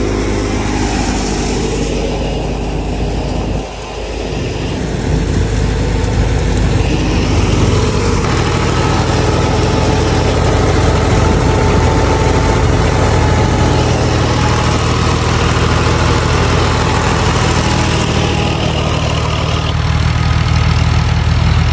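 Tractor engine driving a wheat thresher, a loud steady drone. It dips briefly about four seconds in, then runs on steadily and a little louder.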